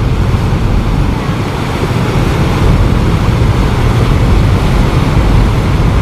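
Wind buffeting the microphone: a loud, steady rush with an uneven low rumble.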